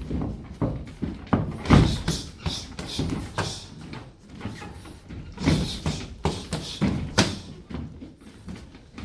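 Kickboxing punches and kicks landing in quick combinations: irregular thuds and slaps, a few much louder than the rest, in a large echoing room.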